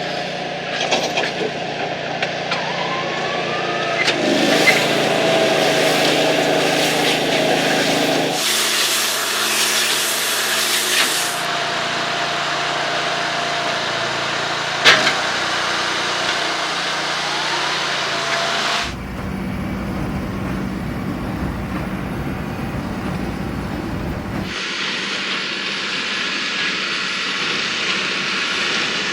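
Farm tractor engine running steadily with baling machinery working, across several shots that change abruptly. There is a single sharp knock about fifteen seconds in.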